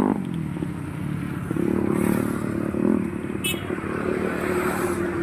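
Roadside traffic, a motor vehicle engine running, with one short sharp high click about three and a half seconds in.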